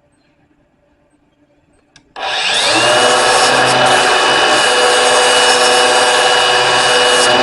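A power tool, most likely an electric grinder, starts about two seconds in. Its motor whine rises and then holds steady under a loud, harsh grinding noise.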